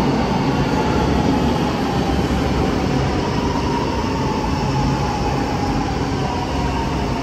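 Milan Metro Line 2 (green line) train pulling into an underground station and rolling along the platform, a loud steady rumble with a faint whine over it.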